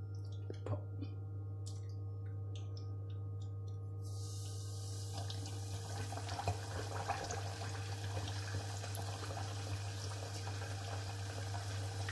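Flour-coated pork belly frying in hot oil in a stainless saucepan: about four seconds in a steady sizzling hiss with crackling sets in as the meat goes into the oil and keeps up to the end. Before that there is only a steady low hum with a few faint clicks.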